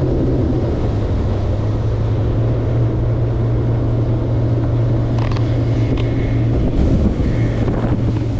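Small fishing boat's motor running steadily under way, with wind noise on the microphone and a few light knocks in the second half.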